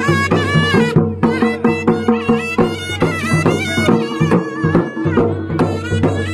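Pahari Nati folk dance music: a fast melody of quickly changing notes over a steady low drone and beat.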